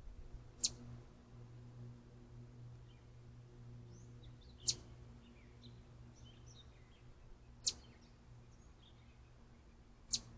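Birds chirping: four sharp, very short high chirps a few seconds apart, with faint softer twitters between them, over a steady low electrical hum.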